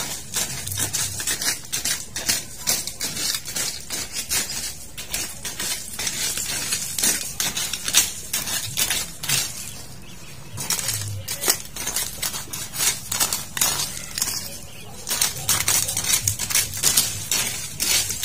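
Hand-weeding in a pumpkin patch: rapid, irregular crackling rustles and small sharp clicks as weeds are pulled and leaves and soil are disturbed, with a couple of short pauses.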